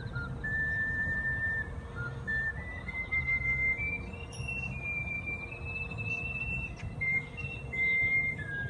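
Ocarina playing a slow melody, one pure note at a time, climbing in steps through several held notes and falling back near the end, over a low rumble.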